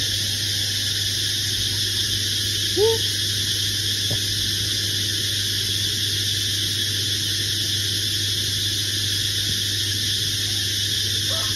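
Domestic cat giving one short, rising meow about three seconds in, then starting another meow right at the end, over a steady background hiss and low hum.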